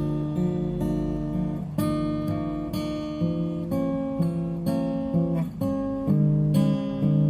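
Ibanez acoustic guitar being played, chords strummed and picked with the notes ringing on, a few sharp strums standing out.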